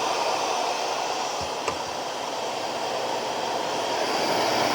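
Shark Navigator Lift-Away Professional NV391 upright vacuum's suction motor running steadily, with one light click about a second and a half in. A sock is jammed in the floor nozzle and the brushroll has shut itself off, its jam-protection light showing red.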